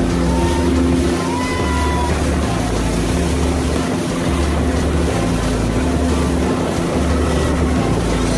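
Pontoon boat's outboard motor running steadily at cruising speed, with the wake's churning water rushing behind the stern and wind buffeting the microphone.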